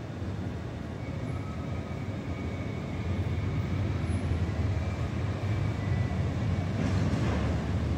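Alstom Citadis tram running toward the listener on city tram tracks: a steady low rumble, mixed with road traffic, that grows slowly louder as it approaches, with a faint high whine through the middle.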